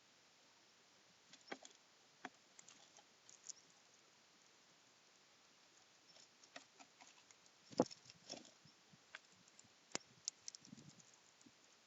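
Scattered faint taps and clicks of a hawfinch pecking at seeds and moving about in a bird feeder house, the loudest knock about eight seconds in.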